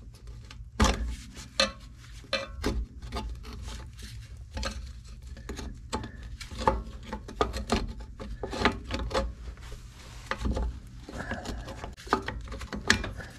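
Flathead screwdriver prying a rear drum-brake shoe out of its wheel cylinder and the shoe being worked loose by hand: irregular metal clicks, clinks and scrapes.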